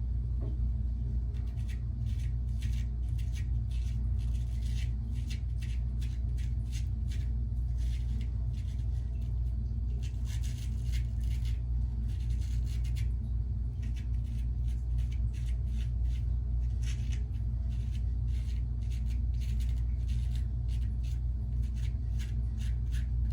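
Short, irregular scraping strokes of a Weck Sexto razor blade cutting through lathered stubble, over a steady low hum.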